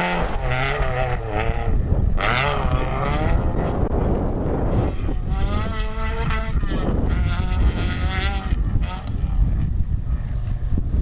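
Rally car engine at full throttle on a gravel stage, revving up and dropping back at each gear change as it goes past and pulls away. There is a rush of noise about two seconds in.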